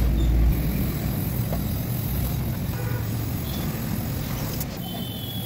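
Gas brazing torch burning steadily with a low rumbling hiss while a diamond segment is brazed back onto a core-drill bit.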